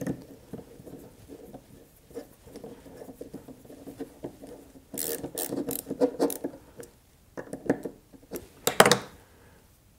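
Small screwdriver snugging down a Torx screw on an AR-15 bolt carrier's gas key: light clicking and scraping of the steel bit and screw, with handling clicks. A sharper click comes about nine seconds in.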